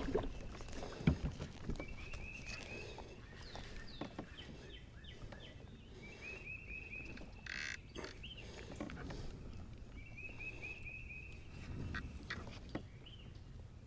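Short runs of quick, high chirping notes from a calling animal, repeating about every four seconds, over scattered clicks and knocks from a baitcasting rod and reel being handled in the kayak, with a brief hiss about halfway through.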